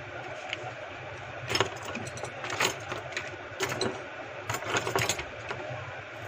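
Scattered clicks and light rattles of a smartphone being handled and set down on a workbench, in several short clusters over a steady low hum.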